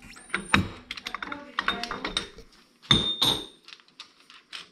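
Hydraulic hose crimper's metal dies and a hose fitting being handled and set in place: a run of light metallic clicks and knocks, with a louder clunk about three seconds in.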